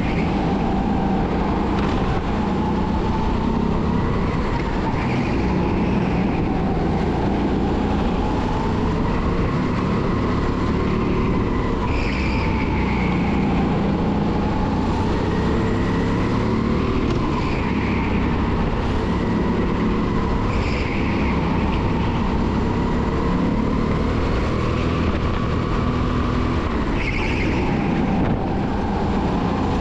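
Onboard sound of a 270cc kart engine running under racing load through a lap, its pitch rising on the straights and dropping into the corners. Brief higher-pitched sounds recur every few seconds.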